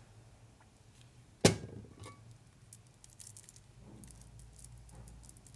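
A single sharp knock on the metal workbench about one and a half seconds in as something is set down, then faint scattered clicks and clinks of small caged roller bearings being handled for lubrication.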